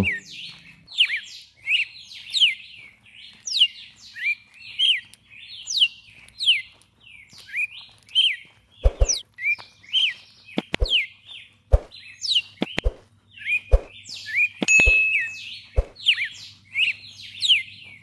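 Red-cowled cardinal (galo-de-campina) singing: a steady run of short, clear whistled notes that slur up or down, repeated over and over, with one longer held note about three quarters of the way through. Through the middle stretch comes a string of short low knocks, about one a second.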